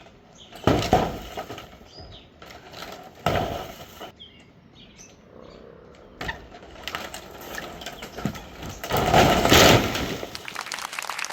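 Old wooden structure being torn down: several separate knocks and cracks of timber, then a loud crash as it collapses about nine seconds in, followed by clattering and crackling of settling wood debris.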